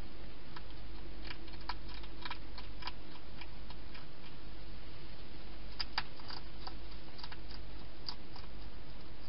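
Wild hedgehog feeding from a bowl inside a plastic feeding station: irregular small clicks and crunches in two flurries. Under them runs a steady low hum and hiss.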